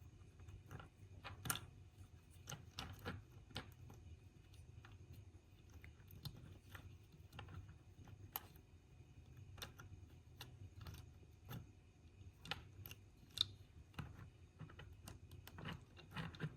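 Irregular faint clicks and ticks of small plastic parts being handled, with a few sharper snaps, one about a second and a half in and one near the end: a screwdriver working the gear tower caps off a model locomotive's trucks.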